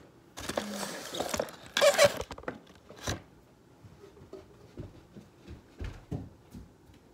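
Rustling and bumping of a cardboard toy box with a clear plastic window being handled, loudest about two seconds in, then a single sharp knock about three seconds in, followed by faint scattered taps.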